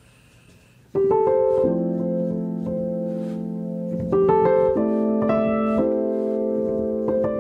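Background piano music: slow, sustained chords that come in about a second in after a quiet start.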